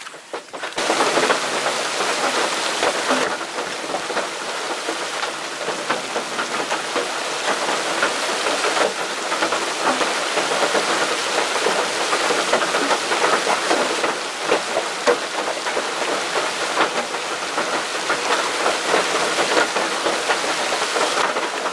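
Heavy rain pouring down steadily, a dense wash of countless drops; it starts suddenly just under a second in.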